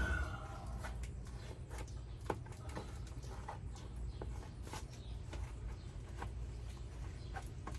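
Scattered light clicks and taps, a few each second, with a sharper tick about two seconds in, over a steady low hum: small handling noises from working the sound deadening material inside the van's cargo area.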